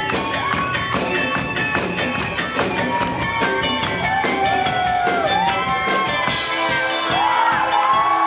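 Live indie rock band playing: electric guitar and bass over a steady drum beat, with notes that slide and bend. A cymbal crash comes in about six seconds in.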